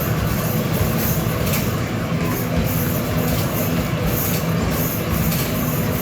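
Continuous rumble and clatter of basketballs rolling down an arcade basketball machine's return ramp, with knocks of balls hitting the backboard and rim during fast play.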